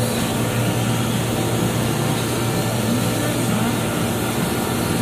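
Steady factory-floor machinery noise: a continuous even drone with a constant low hum and no separate strokes.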